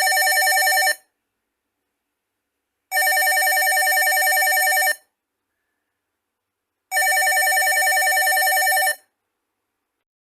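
Office landline telephone ringing in the standard cadence: about two seconds of ringing, then about two seconds of silence. One ring ends about a second in, then two full rings follow, each with a rapid flutter.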